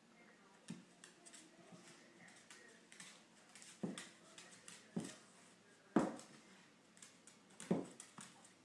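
Scattered light clicks and knocks of a small dog's paws and a rag toy on a ceramic tile floor as the dog twirls and shakes the toy, with a handful of sharper knocks from about the middle on.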